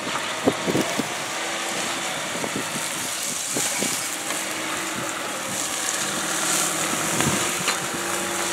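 Land Rover Discovery 5 engine running steadily at low revs as the SUV crawls slowly over rough ground, with scattered short knocks.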